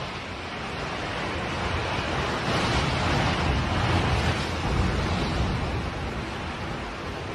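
Multistorey tower block collapsing: a long, deep rumble that swells to its loudest about three to four seconds in, then eases as the building comes down into its dust cloud.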